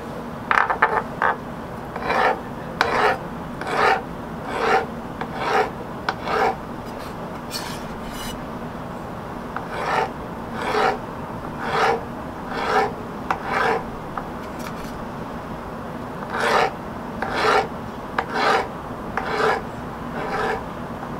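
Kitchen knife slicing grilled portobello mushroom caps against a wooden cutting board: a rasping cut through the charred cap about every second, with a pause of a couple of seconds about a third of the way in.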